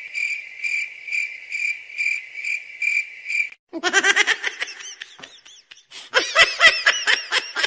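Cricket-chirping sound effect, a steady high chirp repeating about three times a second: the stock 'awkward silence' meme sound. It stops suddenly about three and a half seconds in, and a high-pitched cartoonish laugh in quick repeated syllables follows.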